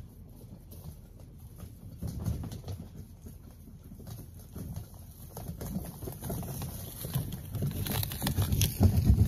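Kayak dolly wheels rolling a loaded mini bass boat over dry leaves, with footsteps crunching alongside; the crackling and rumble grow louder as it comes close, loudest near the end.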